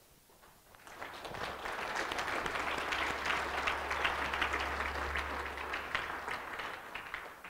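A congregation applauding: many hands clapping, swelling about a second in, holding, then dying away near the end.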